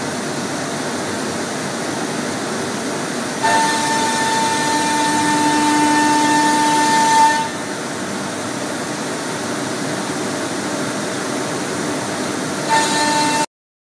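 Busselato Jet Concept CNC router's 12.5 kW routing spindle running and machining a wood panel, over a steady mechanical rush. A higher steady whine comes in a few seconds in and stops about halfway, returns briefly near the end, and then the sound cuts off suddenly.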